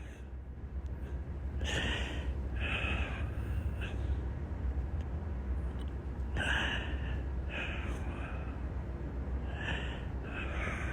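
A man breathing heavily, with loud gasping breaths in and out that come in pairs a few seconds apart, over a steady low hum.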